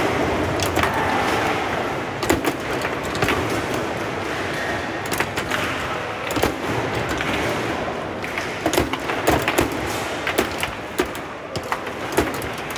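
Foosball table in play: irregular sharp clacks of the ball striking the plastic players and the table walls as the rods are worked, over a steady background hubbub.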